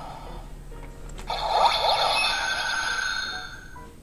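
DX Ultraman Trigger transformation toy clicks about a second in and then plays an electronic sound effect from its speaker, with warbling, sweeping tones over steady ones, for about two and a half seconds. Another click comes near the end.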